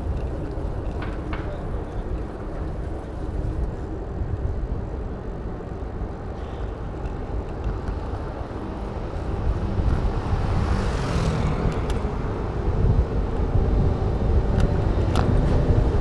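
Wind rumbling on the microphone of a bike-mounted camera while cycling, over steady street and traffic noise, with a brief louder rush of noise about eleven seconds in.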